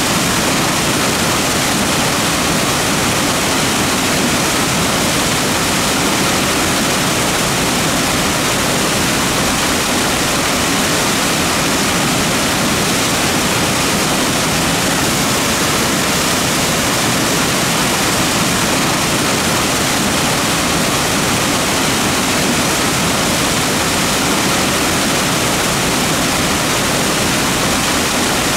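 Mountain creek rushing over rocks: a steady, loud wash of water with no breaks.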